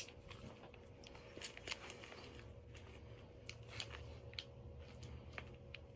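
Faint scattered clicks and crackles of teeth tearing into a tough bagel sandwich and its paper wrapper. The bread had gone tough from sitting hours after it was made.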